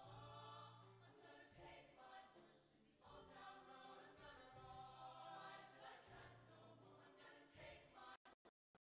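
Show choir singing, faint, with a low note held underneath the voices in long stretches. Near the end the sound cuts in and out rapidly, a stuttering dropout in the stream's audio.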